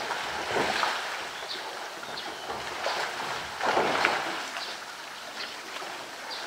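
Water splashing and sloshing in irregular surges as a polar bear presses a floating blue plastic drum down into the pool and rolls it about.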